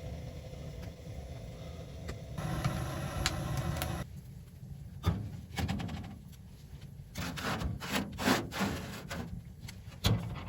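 Several sharp knocks and scraping sounds, as of wood or utensils being handled, over a steady low rumble.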